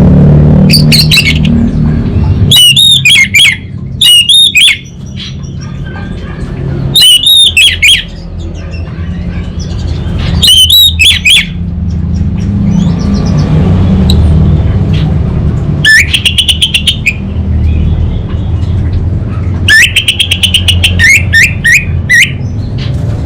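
Orange-headed thrush singing in about seven loud bursts of rapid, repeated high notes, with pauses of a few seconds between them; the later phrases run as fast stuttering trills.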